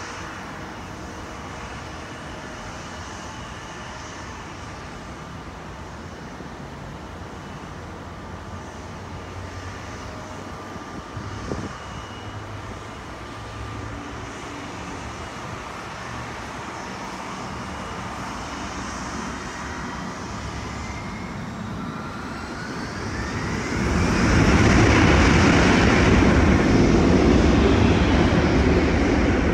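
Delta regional jet's turbofan engines whining steadily. About three-quarters of the way through, the whine rises in pitch and breaks into a loud jet roar as the engines spool up to thrust, typical of the start of a takeoff roll. Highway traffic runs underneath.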